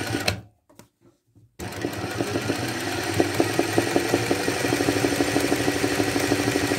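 Sewing machine doing hand-guided free-motion embroidery, the fabric moved slowly by hand to lay dense satin stitches. It runs briefly, stops for about a second, then starts again and runs steadily with a fast, even rhythm of needle strokes.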